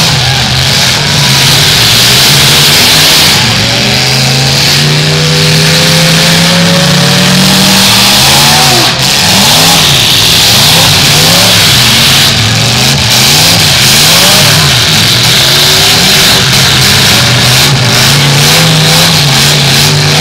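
Several demolition derby cars' engines revving hard and loud, their pitch rising and falling over and over as they overlap.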